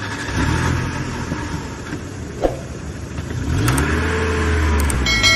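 Intro sound effect of a car engine running and revving up, the pitch rising a little past halfway. A few sharp clicks and a bell-like chime come near the end.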